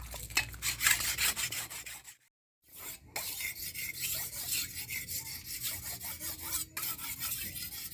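A steel knife blade, cut from an old saw blade, being sharpened by hand: repeated rasping, scraping strokes of steel being worked to an edge, with a brief break about two seconds in.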